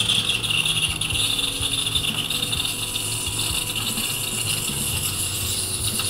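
Ascaso Arc espresso machine's steam wand purging into a cup: a steady hiss as the water in the wand is blown out until only steam comes through.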